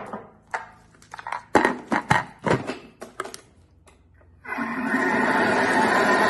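Plastic knocks and clicks as the lid is fitted onto a Thermomix bowl, then, about four and a half seconds in, the Thermomix starts blending: a loud steady whirr of its blades chopping basil, Parmesan, garlic and nuts in olive oil into pesto.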